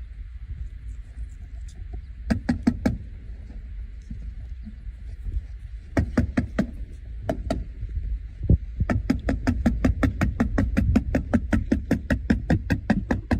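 Sharp knocks from work on the roof: a few scattered strikes, then a fast, steady run of about seven knocks a second in the last few seconds, over a low rumble.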